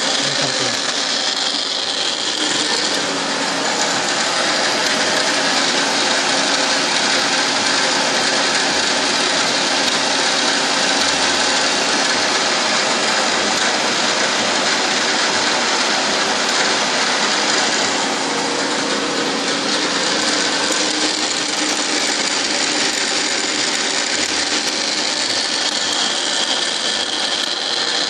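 Milling machine cutting a helical groove in a metal workpiece turned by a dividing head, the table fed by hand: steady machining noise from the motor and the cutter in the metal.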